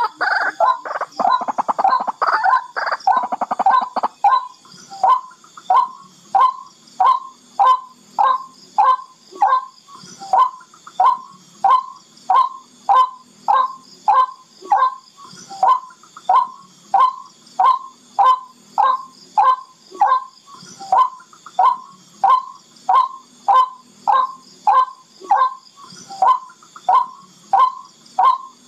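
Barred rail (tikling) calling: a quick, crowded run of harsh notes for the first few seconds, then a steady series of short, clipped calls a little under two a second. It is the bird's call as played to lure barred rails in close.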